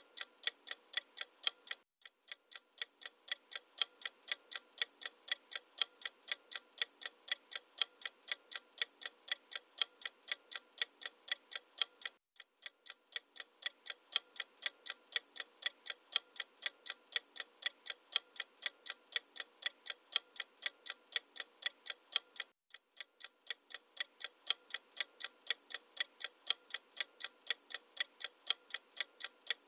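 Clock ticking sound effect used as a quiz countdown timer: an even ticking at roughly two to three ticks a second. It breaks off for a moment three times, about every ten seconds, as the loop restarts.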